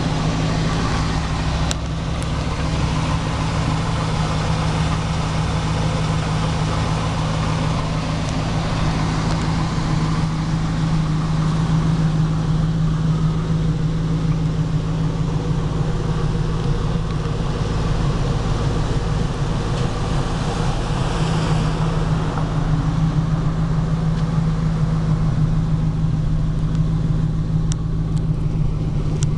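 2002 Chevrolet Camaro SS's 5.7-litre LS1 V8 idling steadily through its dual exhaust.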